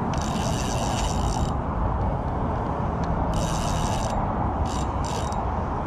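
Daiwa spinning reel cranked in several bursts, its gears whirring, while fighting a hooked red drum, over a steady low background rush.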